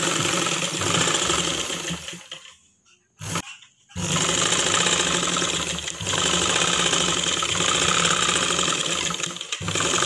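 Sewing machine running, the needle stitching rapidly through a folded edge of cotton petticoat cloth. It stops for about a second and a half a couple of seconds in, gives one short burst, then starts again and runs steadily, with a brief dip near the end.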